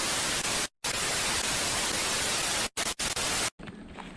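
Television-static sound effect: an even white-noise hiss that drops out briefly about three quarters of a second in and twice around three seconds, then stops suddenly about three and a half seconds in.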